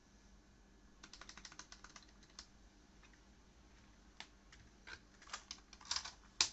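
Typing on an RK61 mechanical keyboard: a quick run of about a dozen keystrokes, then a handful of scattered single key presses, the last one the loudest.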